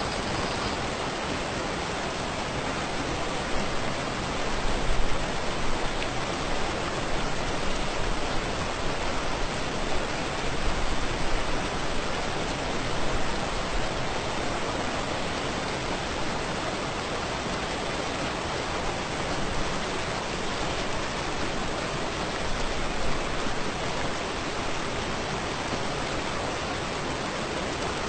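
Waterfall rushing close by: a steady, unbroken wash of falling water.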